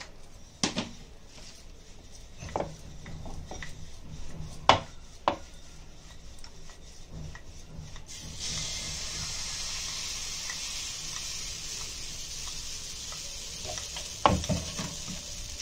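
Wooden rolling pin rolling paratha dough on a wooden board, a low rolling rumble with a few sharp knocks of the pin against the board. Just past halfway a steady high hiss starts and runs on under the rolling.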